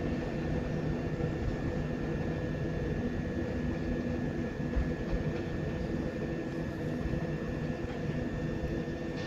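Class 73 electro-diesel locomotive running as it hauls a test train away from the platform: a steady drone with a thin, steady high whine above it.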